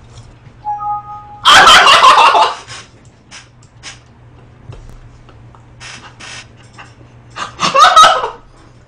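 A short electronic chime of two steady notes, then a man bursts out in loud laughter for about a second. He laughs loudly again near the end.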